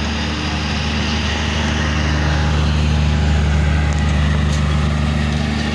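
Passenger train coaches rolling past at close range: a loud rushing rumble over a steady low engine hum, louder in the middle.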